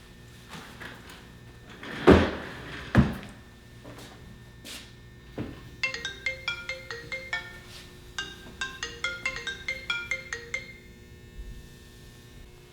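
Two heavy thumps, then a mobile phone ringtone plays a short marimba-like melody twice.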